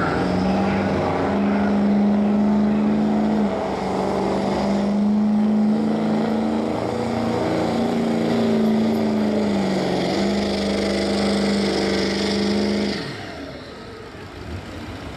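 Ford Super Duty pickup's Power Stroke V8 diesel under full throttle, pulling a weight-transfer sled, with a loud, steady engine note that dips in pitch twice. Near the end the engine drops away as the throttle comes off at the end of the pull.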